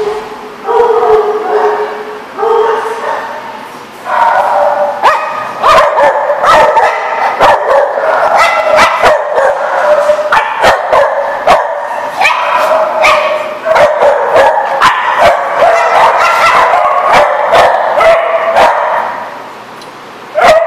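Several small dogs barking and yipping in play. Three drawn-out, whining howls come first, then a fast run of overlapping high barks and yips that drops off briefly before a last burst near the end.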